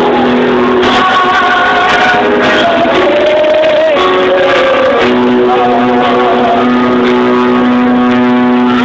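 Live church worship music: an electric guitar playing long held notes, with voices singing over it.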